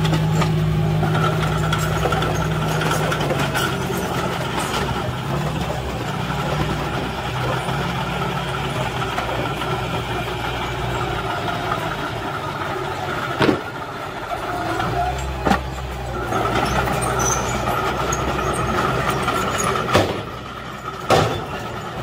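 Diesel engines of a dump truck and a small crawler bulldozer running steadily, the engine pitch shifting a few seconds in. Four sharp knocks come in the second half.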